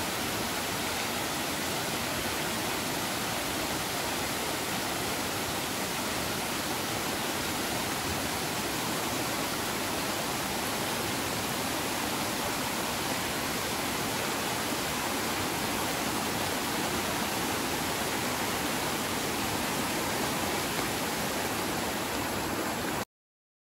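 Rain-swollen, muddy river near flood level rushing over rocks: a steady wash of water noise that cuts off suddenly near the end.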